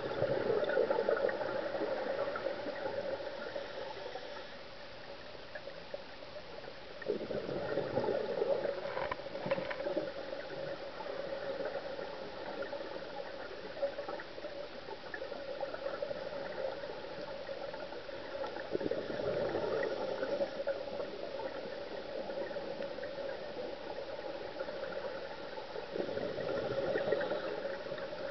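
Underwater scuba diver's exhaled bubbles gurgling out of the regulator in four bursts several seconds apart, over a steady hiss.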